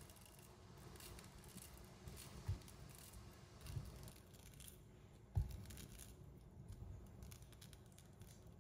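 Knife cutting slices of ripe peach off the pit: faint, scratchy cutting and tearing of soft fruit flesh, with three low thumps, the loudest about five and a half seconds in.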